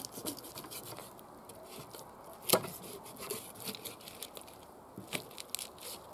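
Knife crunching and scraping through a large common carp's scales, flesh and backbone as the head is cut off, a run of short crunches with one sharp crack about two and a half seconds in.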